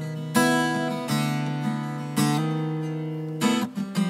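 Acoustic guitar strumming chords with no vocal, about one chord a second, each left to ring and fade before the next.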